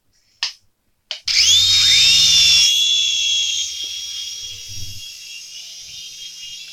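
Two short clicks, then the small electric rotor motors of a toy remote-control helicopter spinning up with a quickly rising whine. The whine holds a steady high pitch and gradually grows quieter.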